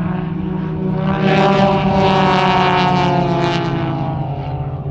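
Propeller-driven aerobatic planes flying past in formation: their engine drone swells about a second in, stays loud for a couple of seconds while its pitch slides slightly lower, then fades.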